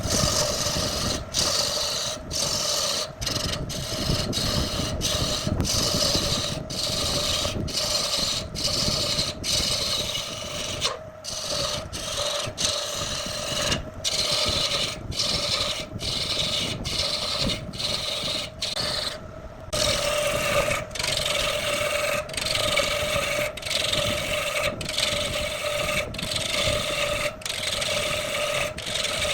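A turning tool cutting into wood spinning on a lathe: a rough, rasping scrape over the lathe's steady hum. It is broken by short gaps less than a second apart, with a longer break about twenty seconds in.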